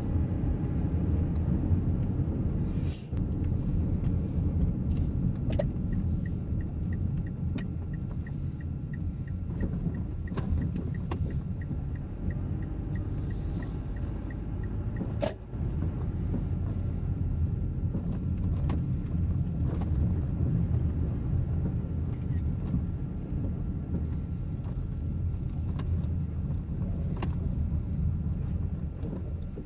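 Steady low road and engine rumble inside a moving car's cabin, with a turn-signal indicator ticking about three times a second for several seconds. The rumble eases near the end as the car slows.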